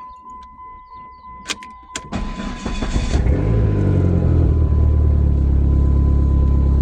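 Two sharp clicks, then a car engine cranks on the starter about two seconds in, catches and settles into a loud, steady idle.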